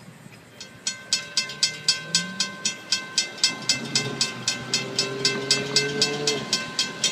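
Railroad grade-crossing bell ringing at an even pace of about four strikes a second while the crossing signals flash, then stopping near the end as the gates come up. A lower steady hum runs underneath in the second half.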